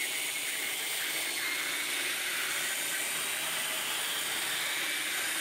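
Cordless drill running steadily, its bit boring out the head of a stripped bolt.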